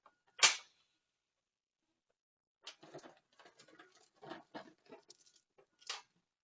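Metal chain links clinking and rattling as a length of chain is pulled off a reel. There is one sharp clink about half a second in, then irregular rattling for about three seconds, ending in a louder clink.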